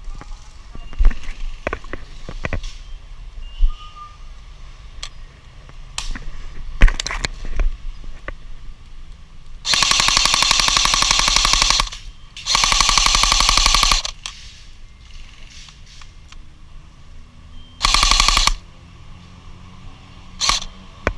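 Airsoft guns firing: scattered single sharp cracks and clicks, then two loud full-auto bursts of about two seconds each in the middle, and a shorter burst near the end.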